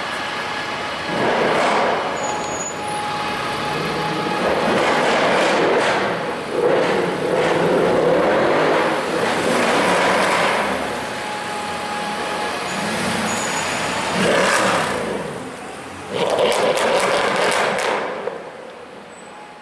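Mercedes-AMG C63's V8 engine and exhaust, loud in several swells as the car revs and pulls away, dying down near the end.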